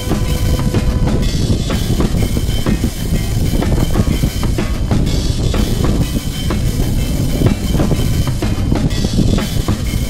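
Background music with a steady drum beat.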